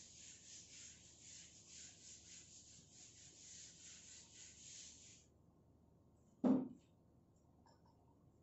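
A whiteboard eraser wiped back and forth across a whiteboard in quick scrubbing strokes, about two to three a second, stopping about five seconds in. A single short thump follows about a second and a half later, louder than the wiping.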